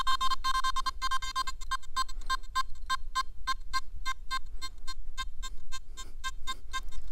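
Nokta Makro Simplex Plus metal detector giving a two-note beeping target tone for a 1-gram 585 gold pendant passed over its coil, with a target ID of 19. The tone is nearly continuous at first, then breaks into short repeated beeps, about three a second, that grow fainter and stop shortly before the end. It is a good response out to about 20 cm.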